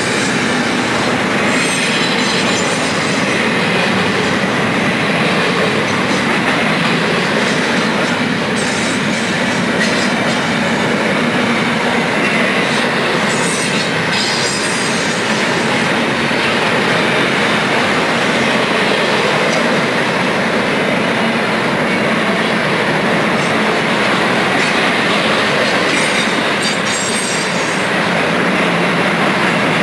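Double-stack intermodal container well cars rolling steadily past: a continuous rumble of steel wheels on rail with clickety-clack, and brief high-pitched wheel squeals now and then.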